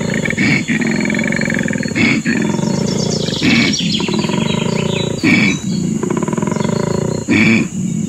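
Koala bellowing: a deep, rasping call with rapid pulsing, broken every second or two by a short, sharp intake of breath.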